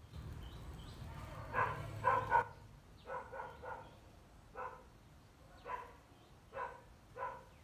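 A dog barking about ten times in short barks, singly and in quick twos and threes, with pauses between.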